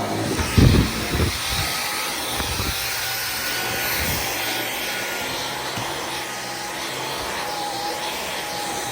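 Dyson V15 Detect cordless stick vacuum running steadily, a dense rushing noise with a thin motor whine, and two low thumps about a second in.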